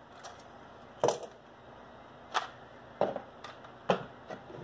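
Sharp, irregular clicks and taps, about six of them, as a plastic HO scale model locomotive shell and small parts are handled and set down on a workbench.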